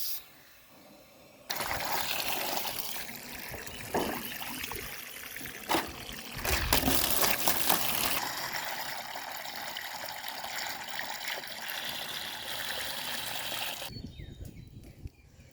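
Water running and splashing into a container as the ducks' water dish is refilled. It starts suddenly about a second and a half in and cuts off near the end.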